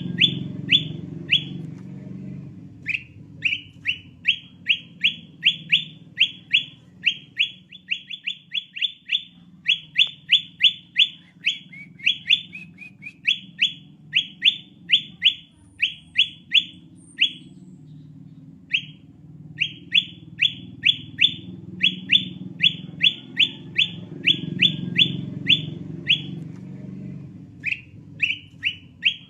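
Lure recording of a kutilang emas (bulbul) calling: runs of short, downward-slurred whistled notes, about three a second, broken by brief pauses. A low rumbling background swells and fades beneath the notes.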